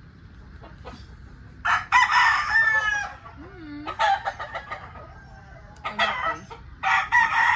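Roosters crowing: one long crow about two seconds in and another starting near the end, with shorter chicken calls and clucking in between.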